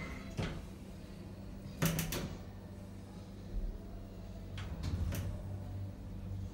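Tecno passenger lift closing its doors with a thud, then a quick cluster of sharp clicks about two seconds in and a steady low hum as the car travels, with a few more clicks near the end.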